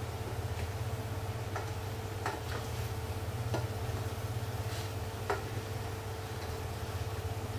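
A spatula stirring chicken in a stainless steel pot, knocking against the metal in about six scattered sharp clicks over a steady low hum.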